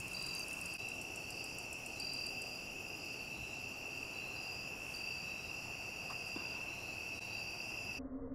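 Night chorus of crickets and other insects: a steady high trill with a second, higher trill pulsing on and off. About 8 seconds in it cuts off sharply and a low steady drone takes over.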